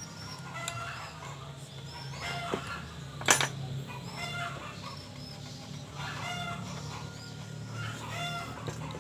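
Short bird calls repeating throughout over a low steady hum, with one sharp click about a third of the way in that is the loudest sound.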